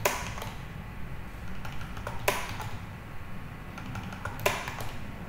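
Computer keyboard keystrokes: three sharp clicks about two seconds apart with a few fainter taps between, over a low steady hum.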